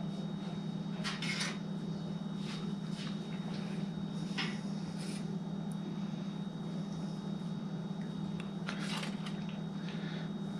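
Scattered light clicks and scrapes of a fork picking cooked trout apart in a foil pack, over a steady low hum.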